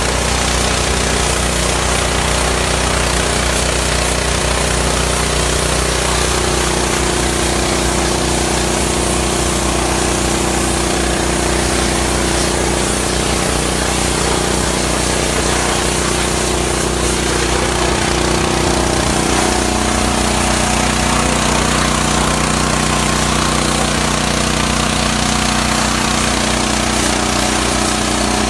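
Diesel-fired hot-water pressure washer running steadily, its high-pressure jet hissing as it sprays steaming water against a forklift's wheel and mast, over the steady hum of the washer's motor and pump.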